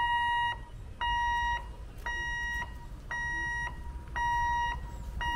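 Level crossing warning hooter beeping about once a second, each beep a steady, half-second electronic tone, sounding while the barrier is down to warn of an approaching train.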